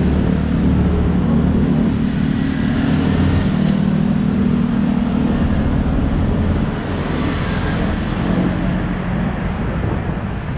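Road traffic close by: motorcycle and tricycle engines running with a steady low hum over general street noise. The hum eases about two thirds of the way through.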